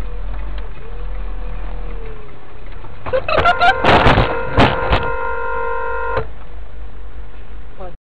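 Dashcam recording inside a moving car with a steady road rumble; about three seconds in, a burst of loud bangs and crunches of a collision, and a car horn sounds steadily for a few seconds, then stops. The sound cuts off abruptly near the end.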